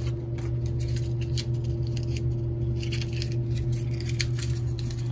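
A steady low hum with a faint constant tone above it, under a scatter of light clicks and taps from metal fork bushings being handled on a padded workbench mat.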